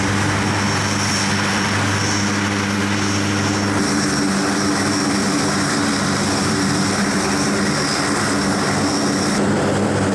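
F-35B Lightning II jet engine running on the ground: a steady rush of noise with a high-pitched turbine whine over a low hum, the lowest part of the hum dropping out about four seconds in.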